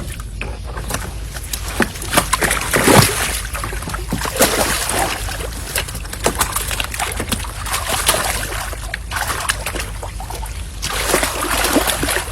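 Water splashing and sloshing in irregular bursts, with many small knocks and a steady low hum underneath.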